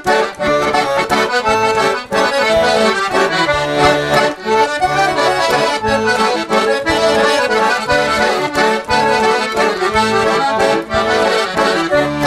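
Piano accordion playing a tune with a regular beat.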